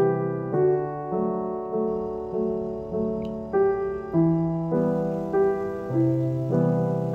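Background piano music: a gentle tune with a new chord struck at an even pace, roughly every half second, each left to ring.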